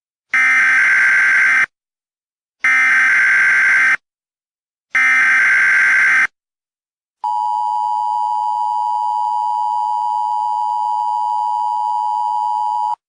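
Emergency Alert System SAME header: three bursts of warbling digital data tones, each about a second and a half long, followed by the EAS two-tone attention signal, a steady dual-pitched tone held for about six seconds. Together they mark the start of an emergency alert broadcast.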